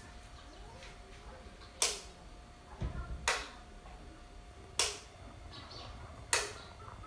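Wall light switch clicked four times, about every one and a half seconds, switching the repaired LED ceiling light on and off to test it. A faint steady tone runs underneath.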